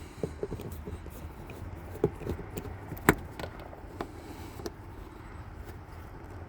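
Scattered clicks and knocks of hands working loose plastic interior trim in a car, the loudest a sharp knock about three seconds in, over a low steady rumble.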